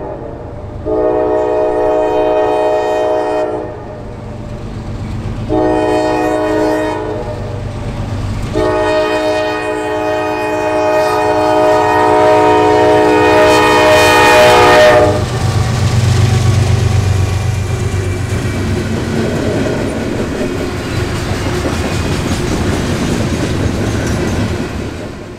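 Norfolk Southern freight train's air horn sounding a long blast, a short one, then a long one of about six seconds: the end of the long-long-short-long grade-crossing signal. Then the diesel locomotives pass with a low engine rumble, and the freight cars roll by with their wheels clattering on the rails.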